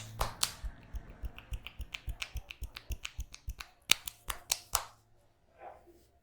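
Rapid percussive tapping of hands on the head and neck during a head massage, an even run of sharp slaps about five a second, with a few louder ones near the end before it stops.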